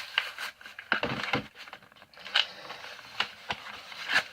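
Sharp plastic clicks and cracks, about eight at irregular intervals, as a glitter gel pen is pried open by hand.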